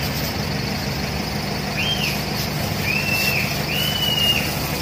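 Steady rumble of street traffic and a running vehicle engine. Over it, a bird gives three short whistled calls, each rising and falling, in the second half.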